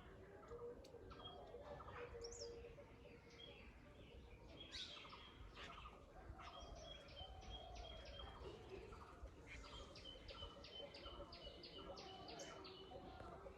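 A faint morning chorus of several birds chirping and calling together. One bird repeats a short high note in quick runs, and lower whistled calls run beneath it, over a steady low background rumble.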